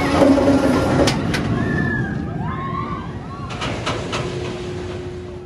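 Bolliger & Mabillard sit-down steel roller coaster train running along its track with a loud rumble, strongest in the first second or so. Riders' voices call out over it, and a few sharp clicks come through before the sound fades toward the end.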